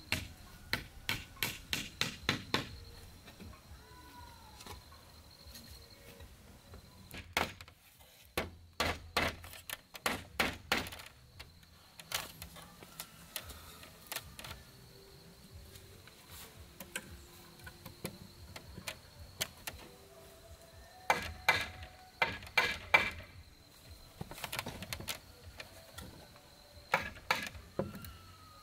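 Hammer driving nails into wooden boards, in several runs of quick, sharp blows with pauses between. Faint birdsong between the runs.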